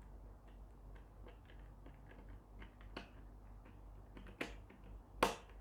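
Plastic parts of a barbecue gas lighter's casing being handled and snapped together: faint small clicks and taps throughout, with a few sharper clicks in the second half, the loudest just before the end.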